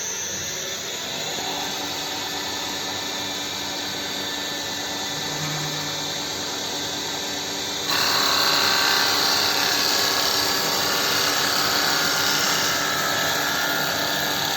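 CNC mini wood lathe running a cutting program: its spindle and drive motors run steadily with a constant whine. About eight seconds in the sound steps up louder and hissier, as the turning tool cuts into the spinning wood.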